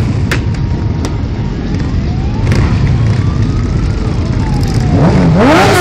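Many motorcycle engines running together in a dense low rumble as a crowd of bikes moves off slowly. Individual bikes rev over it, and one engine revs up sharply about five seconds in.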